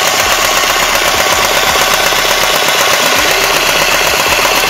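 Battery-powered toy sewing machine (My Home Little Tailor) running steadily, its needle mechanism making a fast, even rattle as it stitches through cloth.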